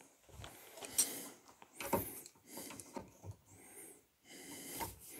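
Faint clicks and scraping of a small hand tool on metal as the lock screw in a click-type torque wrench's grip is loosened, with sharper clicks about one and two seconds in.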